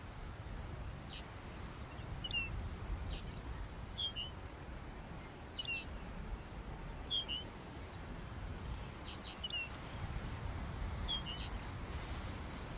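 Low, steady wind noise with about a dozen short, high bird chirps scattered through, roughly one every second.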